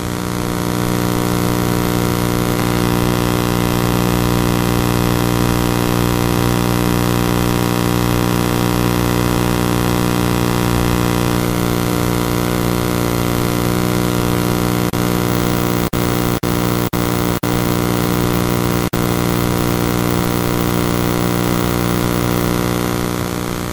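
Steady electrical buzz: a loud, unchanging low hum with many overtones and some hiss. It fades in, drops out briefly a few times about two-thirds of the way through, and fades out at the end.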